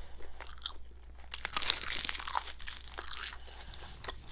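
Close-miked crisp crackling and crunching of a sheet of roasted seaweed being bitten and chewed, densest from about a second and a half in until about three and a half seconds.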